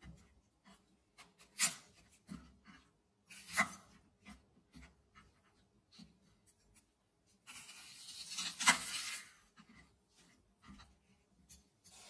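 Chef's knife trimming spring onions on a wooden cutting board: scattered taps and cuts of the blade on the wood, with a longer rasping stretch ending in a sharp knock about eight seconds in.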